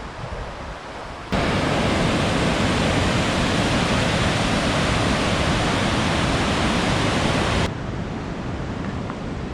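Rushing river water, a loud steady rush that starts suddenly about a second in and cuts off suddenly near the end, with a quieter rush either side.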